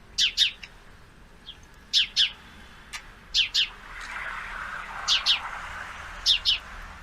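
Male sparrow chirping in repeated double chirps, each note falling in pitch, about five pairs spaced a second or so apart.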